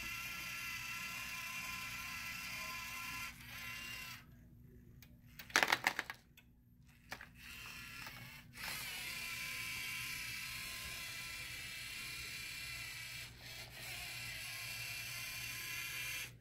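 LEGO Mindstorms EV3 robot's motors whining steadily as it drives at a slowed 25% speed, with a brief loud plastic clatter about six seconds in; the whine returns from about nine seconds on.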